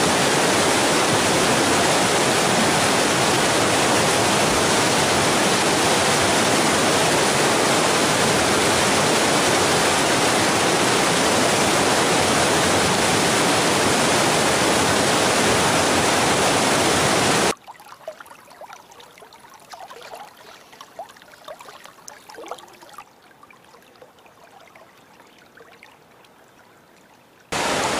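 Whitewater rapid rushing steadily over boulders. About two-thirds of the way through it cuts off suddenly to a much quieter stretch with faint scattered ticks.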